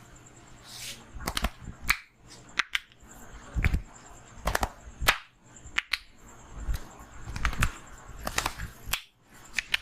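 Sharp slapping and cracking strikes from a barber's hands working the head and neck in an Indian head massage, about a dozen, irregularly spaced, many in quick pairs.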